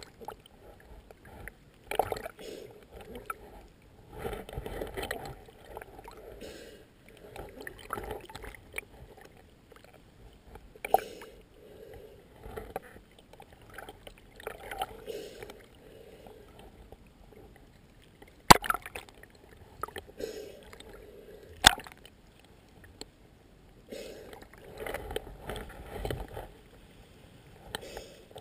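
Water sloshing and lapping around a small boat in irregular soft swells, with two sharp knocks partway through.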